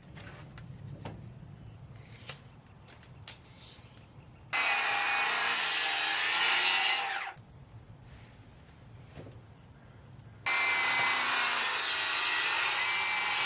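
A power saw crosscutting thin cedar boards to length: two cuts of about three seconds each, the blade whining steadily through the wood, with quieter knocks from handling the boards before and between them.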